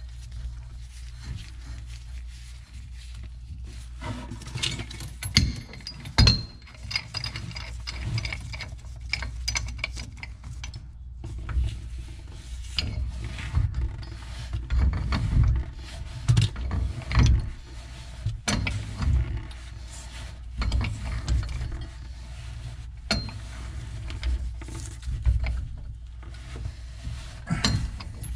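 Threaded steel pipe nipple being turned into a drain fitting with a pipe wrench: irregular metallic clicks, knocks and scrapes of the wrench jaws and threads, starting about four seconds in.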